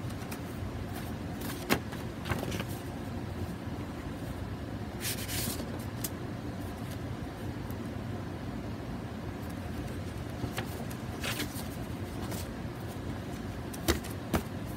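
Steady low room hum with a few sharp clicks and two brief rustles as a paper zine is handled and turned in the hands.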